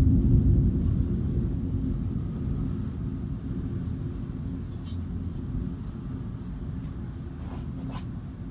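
Thunder rolling in a deep low rumble, loud at first and fading steadily away.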